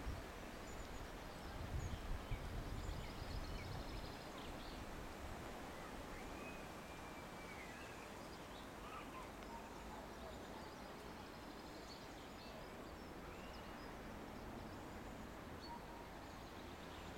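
Distant steam locomotive working hard from a standing start, heard as a faint low rumble that is strongest in the first few seconds. Birds chirp over it.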